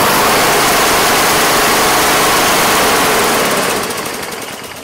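Honda GCV160 single-cylinder four-stroke lawnmower engine running steadily, then shutting off and winding down over the last second or so.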